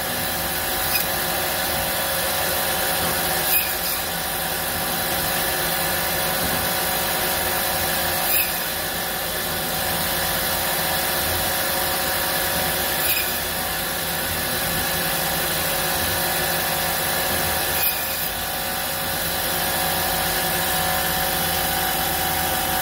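Automatic meat-portioning bandsaw running steadily, its vertical blade slicing a pork loin into chops, with a conveyor belt running alongside. A short sharp clack comes about every four to five seconds.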